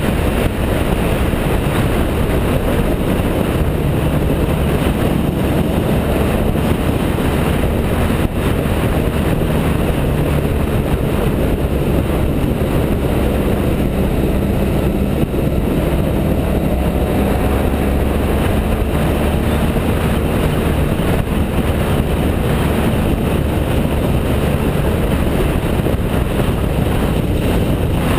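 BMW F650GS motorcycle engine running at a steady cruise, with wind and road noise.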